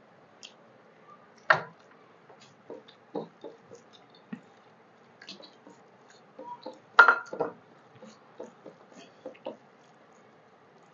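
Close-up eating sounds: fingers mixing rice and curry on steel plates, with soft wet squelches, chewing and scattered small clicks. Two sharp clinks of steel dishware stand out, one about a second and a half in and a louder, briefly ringing one around seven seconds in as a steel bowl is handled over the plate.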